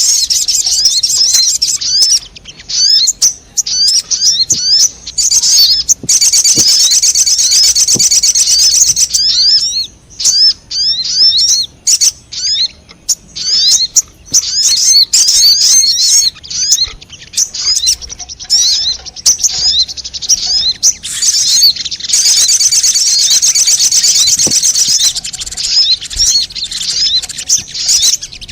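Spiderhunter (sogon) lure call: rapid, high-pitched chattering chirps repeated almost without pause, with two longer stretches of dense, fast trilling, one about six seconds in and one about twenty-two seconds in.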